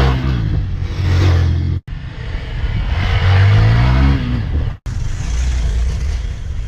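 Hero Xpulse 200's single-cylinder engine revving through its exhaust, its pitch rising and falling with the throttle. The sound comes in three short takes, each cutting off abruptly.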